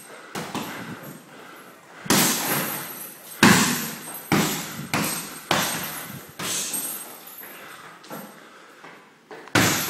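Gloved strikes landing on a hanging heavy bag: a string of separate, irregularly spaced thuds, one early and then seven or so from about two seconds in.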